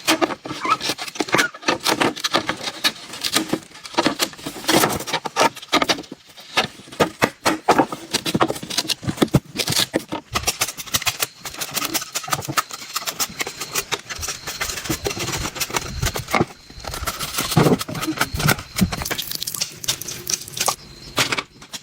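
Rapid, irregular knocking and clattering of hard objects struck and handled, with a few brief voices.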